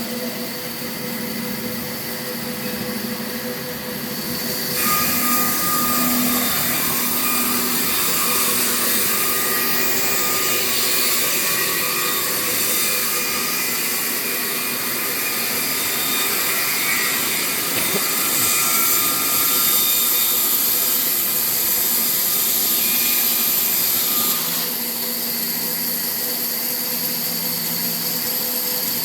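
Sawmill saw running steadily, growing louder about five seconds in as it cuts wood, and easing back about twenty-five seconds in.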